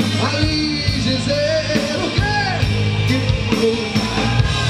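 Live rock band playing with a steady drum-kit beat, bass and keyboards, and a man singing lead into a microphone.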